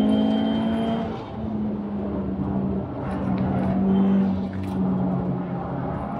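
Turbocharged EJ20 flat-four of a Subaru VAB WRX STI, built with a bigger turbocharger and enlarged displacement, pulling hard at track speed, heard from inside the cabin. The engine note drops away briefly about a second in, near three seconds and again around four and a half seconds, between stretches of steady pulling.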